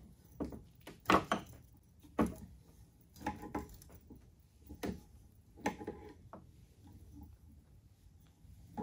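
Adjustable wrench clinking and knocking against a bearing puller's forcing screw as it is turned to draw the worn wheel bearing out of an electric scooter hub motor. Irregular short metal knocks, about one a second, thinning out after about six seconds.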